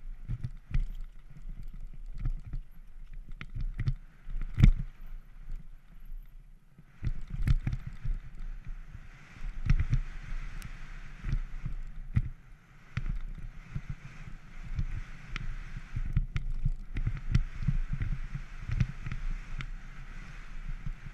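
Banshee Legend downhill mountain bike ridden fast down a dirt trail, heard from a GoPro on the rider. Wind rumbles on the microphone and the tyres hiss over the dirt, with frequent knocks from the bike hitting bumps and a hard clunk about four and a half seconds in.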